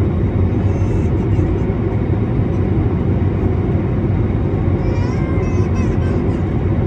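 Airbus A321neo cabin noise in flight shortly after takeoff: a steady rush of engines and airflow with a low hum, heard inside the cabin by the wing.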